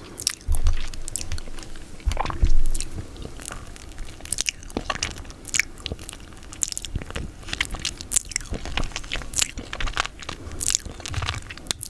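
Close-miked mouth sounds of eating peanut butter: wet, sticky clicks and smacks of the tongue and lips, at irregular intervals.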